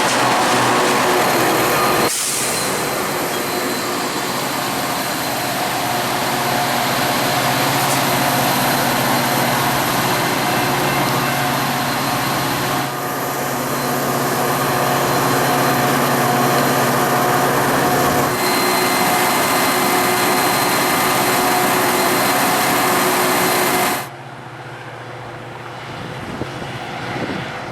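Metra diesel commuter train at the station platform: a loud, steady engine hum with a few constant tones and the rush of the train. Near the end the sound drops off suddenly to quieter wind and distant traffic.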